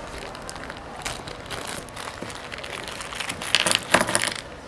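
A thin plastic packet crinkling and rustling as it is handled, in short scratchy crackles that bunch up louder about three and a half to four seconds in.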